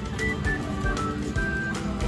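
Background music: a bright melody of short notes over a steady beat of about two beats a second.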